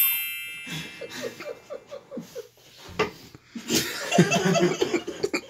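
A bright chime rings at the start and fades. Then two men laugh: a rhythmic 'ha-ha-ha' of about six pulses a second, followed by louder bursts of laughter about three and four seconds in.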